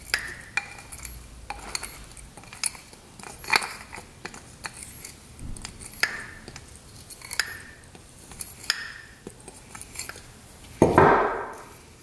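An adjustable wrench clinks against the aluminium body of a Keihin carburettor as the choke plunger nut is worked loose. There are sharp metal clicks about once a second, several with a brief ring, and a louder rough scrape near the end.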